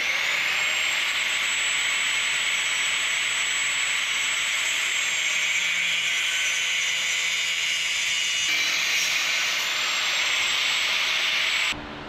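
Corded angle grinder cutting through metal tile-edge trim: a steady high motor whine over a harsh grinding hiss, which stops abruptly near the end.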